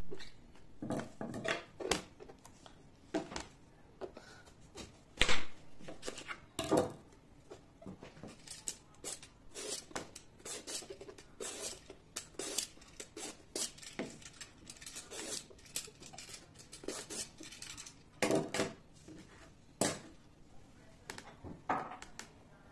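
Vegetable peeler scraping strips of skin off an eggplant, with irregular knocks and clatters of the eggplant and utensils on a plastic cutting board. The loudest knock comes about five seconds in, and the quick scraping strokes are thickest in the middle.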